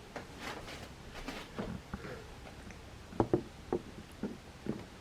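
A cat moving about in a cardboard box: a run of irregular light taps and knocks, the loudest clustered a little past the middle.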